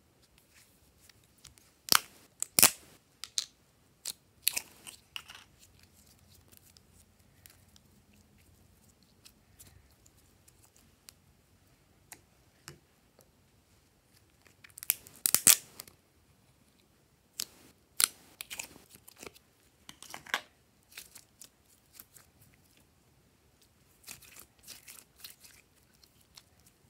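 A round plastic slime tub being handled and its lid worked open: scattered sharp clicks and crackles of plastic in a few short clusters, the loudest about two seconds in and around the middle.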